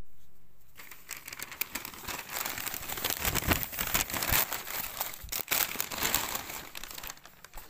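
Christmas wrapping paper crinkling and rustling in quick, irregular crackles as a present is handled and unwrapped.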